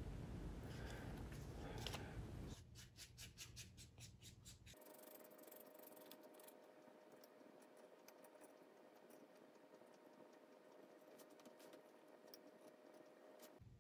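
Faint scratching and scraping of a stick mixing two-part epoxy on a card, with a run of quick regular strokes, about four a second, a few seconds in, then only faint scattered scratches.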